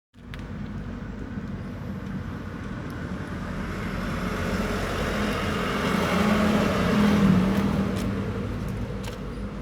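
Road vehicle noise: engine hum and tyre noise swelling to a peak about two-thirds of the way through, then easing off, like a vehicle passing close by. It starts abruptly.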